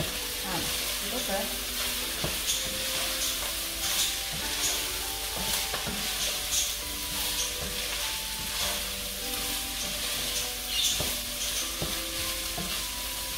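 Pasta and cabbage sizzling in a pot while a wooden spoon stirs them, scraping through the pot in repeated strokes.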